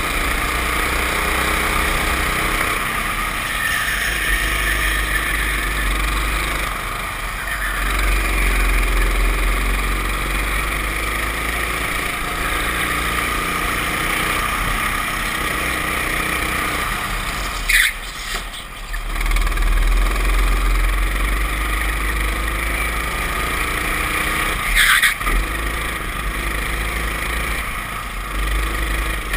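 Racing kart engine running hard, heard from on board the kart, its pitch rising and falling again and again as it accelerates out of corners and lifts into them. Two sharp knocks about seven seconds apart, the first a little past halfway.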